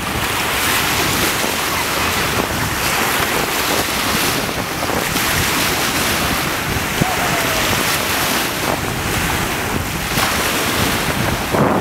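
Steady wind noise on the microphone over small waves breaking on the shore, with dogs splashing through the shallow water.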